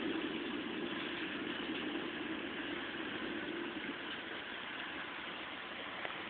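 Heavy thunderstorm rain pouring down, a steady rushing noise heard through window glass.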